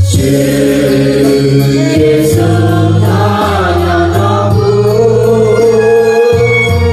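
Music: a song with singing, a wavering sung line over held bass notes that change every second or so.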